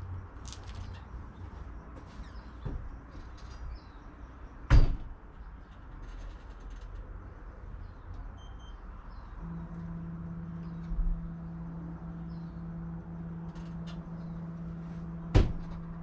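Two sharp knocks about ten seconds apart. About halfway through, a steady low hum starts up as the Rheem tankless water heater is powered back on.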